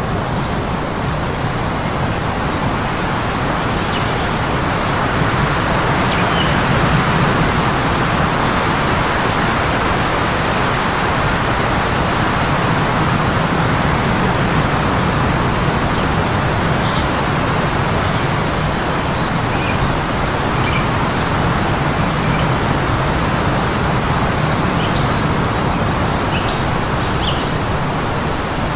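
Heavy blizzard wind blowing steadily, a dense rushing noise. Small birds chirp now and then over it: a few short high chirps about a second in, around four seconds in, in the middle, and a cluster near the end.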